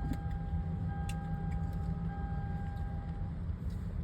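Car windshield wipers running: a thin steady motor whine in stretches about a second long with short breaks between them, over a steady low rumble. The whine stops shortly before the end.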